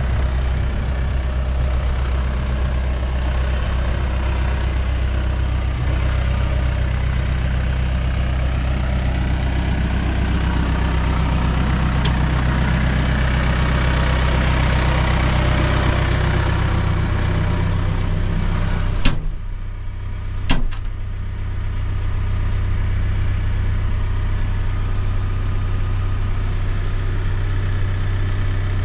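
Case 580 Super M backhoe's diesel engine running steadily. About two-thirds through there are two sharp clicks, and the engine then carries on at a lower pitch.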